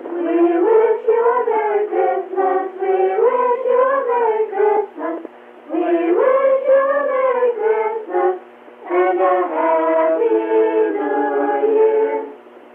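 Children singing a Christmas carol, heard from an old cassette recording. The sound is thin, with no deep lows and no bright highs. The singing comes in three phrases with short breaks about five and eight seconds in, and the last phrase holds long notes.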